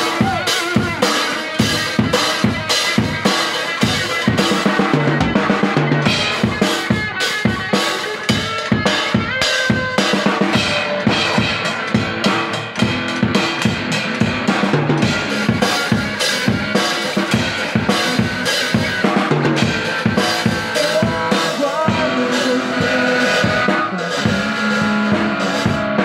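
A drum kit played live, with snare, bass drum and cymbals keeping a steady, dense beat.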